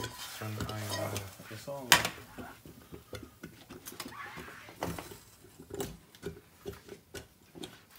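Kitchen clatter at the stove: a sharp clink about two seconds in, then scattered light knocks and clicks of pots, lids and utensils being handled. Voices talk in the background during the first two seconds.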